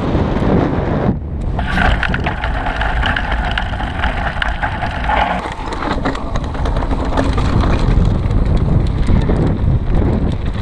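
Wind buffeting a helmet-mounted and then handlebar-mounted action camera's microphone as a downhill mountain bike rolls fast over a dirt and gravel trail, with the tyres crunching and small clicks and rattles from the bike. The sound changes abruptly about a second in, and a steady whirring tone runs for a few seconds in the middle.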